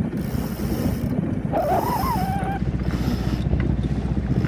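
A yacht's headsail being unfurled, the sheet hauled around a cockpit winch, with a short wavering rope squeal about halfway through. Under it runs the steady drone of the boat's engine.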